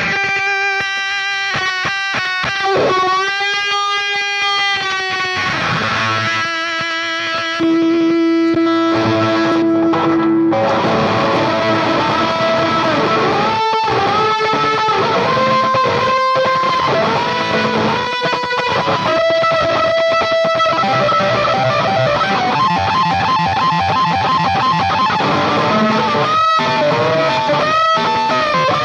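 Electric guitar, a Stratocaster-type, boosted into crunch by an MXR Micro Amp through a Marshall amp, with other effects pedals in the chain. It plays lead lines full of string bends and vibrato, with a long held note and a step up in loudness about seven seconds in.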